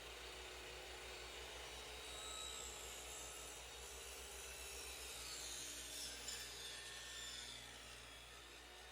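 Faint, steady background noise with a low hum underneath, and no distinct event.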